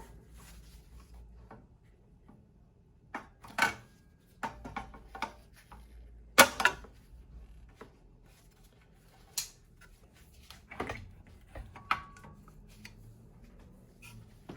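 Scattered clicks and knocks of a plastic cord strain relief and power cord being pushed and snapped into an espresso machine's housing, the sharpest knock about six seconds in.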